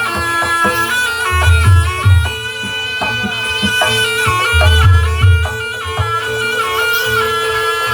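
Traditional Javanese barongan accompaniment music: a reedy shawm-like wind instrument plays a wavering melody over a steady drone, with deep drum strokes coming in short clusters.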